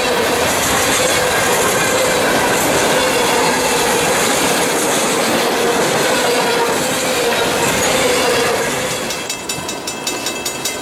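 Freight train cars (covered hoppers, boxcars and tank cars) rolling past at speed: continuous wheel-on-rail rumble and clatter with a steady whine from the wheels over it. About nine seconds in it gives way to a quieter background.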